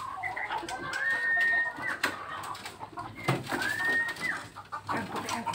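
White-rumped shama (murai batu, Nias race) singing: two drawn-out whistles that slide up and then hold, about two seconds apart, amid short sharp clicks.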